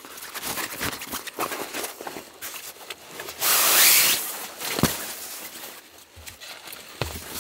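Rustling and flapping of a Russian military sleeping bag as it is pulled from its stuff sack and shaken out, with one loud whoosh of the fabric about three and a half seconds in. Footsteps on dry leaf litter and small clicks of handling go on around it.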